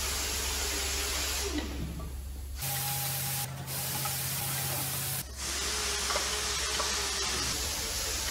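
Steady hissing noise over a low hum, which changes abruptly about two and a half seconds in and again about five seconds in.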